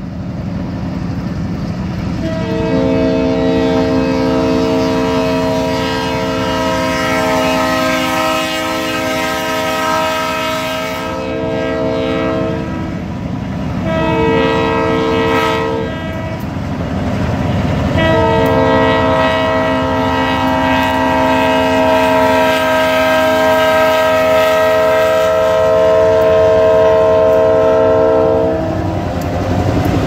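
Chesapeake and Indiana Railroad diesel locomotive's multi-chime air horn sounding for a grade crossing: a long blast of about ten seconds, a short one, then another long one that stops just before the locomotive reaches the crossing. Underneath is the steady rumble of the diesel engine and the wheels on the rails, loudest as the locomotives pass close by at the end.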